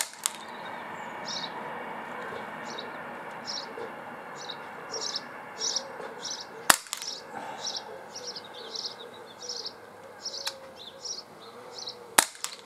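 Sig Sauer M17 CO2 blowback pellet pistol firing: sharp shots about six seconds apart, one at the very start, one just past the middle and one near the end. High chirping repeats about twice a second behind them.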